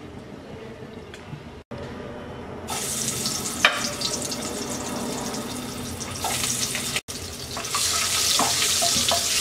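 Spiced hard-boiled eggs frying in hot oil in a kadai: a steady sizzle with fine crackling that sets in a few seconds in and grows louder later. Near the end a wooden spatula taps and scrapes against the pan as the eggs are turned.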